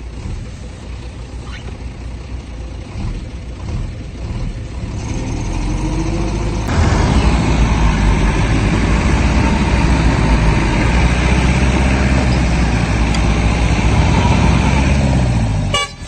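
Stuck dump truck's engine working hard, its pitch rising from about five seconds in and then jumping much louder about seven seconds in, held at high revs as the truck tries to pull out of the mud.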